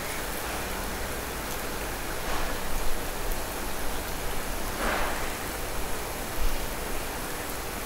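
Takoyaki sizzling in the hot pan of a gas takoyaki machine, a steady rain-like hiss with a few brief louder swells, about three, five and six and a half seconds in, as a bamboo skewer turns the balls.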